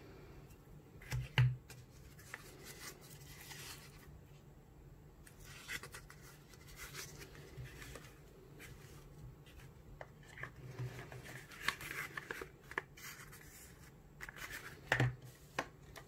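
Hands handling a brass Zippo lighter, its box and paper insert: scattered rustling, light clicks and small knocks, loudest about a second in and again near the end.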